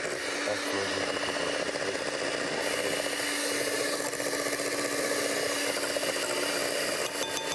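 Electric hand mixer running steadily, its wire beaters whisking fish roe and oil in a glass bowl into a tarama caviar spread. There are a few clicks near the end.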